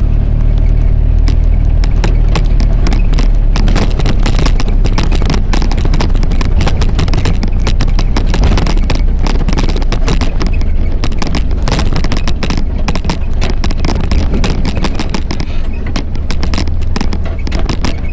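Vehicle engine running steadily while driving over rough off-road ground, with frequent knocks and rattles throughout from the bumpy track.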